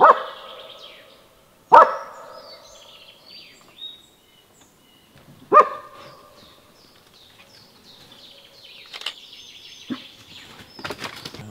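Hunting hound barking at a wild boar: three loud, single barks in the first six seconds. Songbirds chirp throughout.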